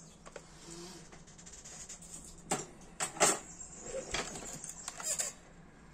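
A clear plastic compartment box full of small metal screws and parts being handled and set aside: a few sharp plastic clicks and clatters, with the loosest ones in a cluster about three seconds in.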